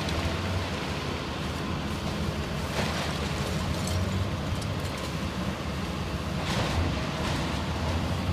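Excavator's diesel engine running steadily as it works through a pile of demolition debris, with crunching and clattering of broken wood and sheet metal a few times, around three and four seconds in and again near seven. Under it runs the hiss of a water hose spraying the pile to keep the dust down.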